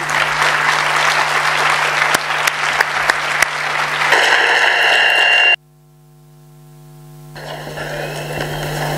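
Audience applauding a speaker being welcomed, with a steady low hum underneath. The applause cuts off abruptly about five and a half seconds in, and faint hall noise rises back in after it.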